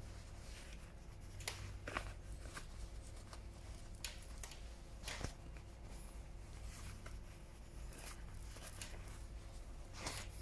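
Faint, brief rustles of trouser fabric being handled and folded inward at the hem by hand, over a steady low hum.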